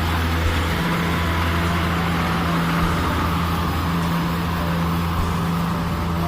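Kubota DC70 Plus rice combine harvester's diesel engine running steadily, a constant low hum with the machine's mechanical noise over it.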